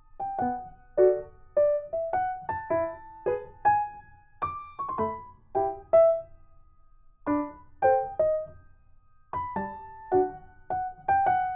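Background piano music: a slow melody of single plucked-sounding notes with chords, about two or three notes a second, pausing briefly near the middle.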